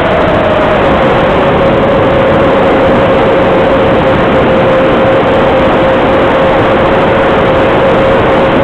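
X250 250-size quadcopter's motors and propellers running: a loud, steady whine holding one pitch over a rushing noise, stepping slightly higher for about the first second and then settling lower.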